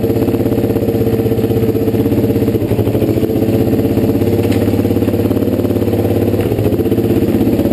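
Motorcycle engine idling steadily, with a fast even pulse of firing strokes; its lower notes shift slightly about six and a half seconds in.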